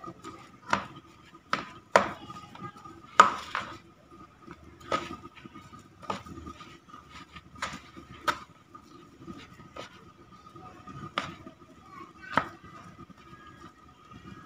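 A utensil mashing boiled cassava in a plastic bowl, knocking against the bowl in irregular sharp taps about once a second. A faint steady high tone runs underneath.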